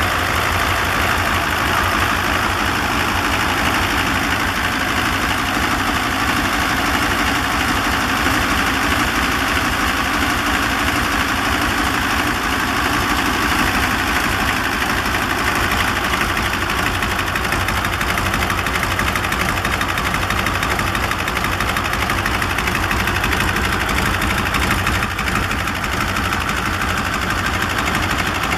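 Guiberson T1020 nine-cylinder, 1021-cubic-inch air-cooled radial diesel engine running steadily, a loud, even stream of firing pulses.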